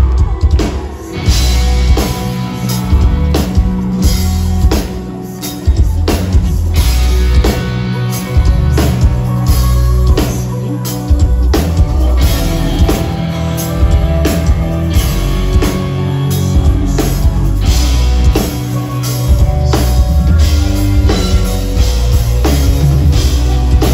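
Live band playing a loud instrumental passage: drum kit hits at a steady beat over a heavy low end, with guitar and keyboards sustaining notes above.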